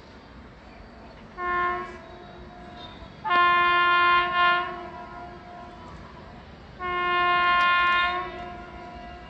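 WAG9HC electric locomotive's air horn sounding three blasts as the train approaches: a short one, then two longer ones, each a single steady chord.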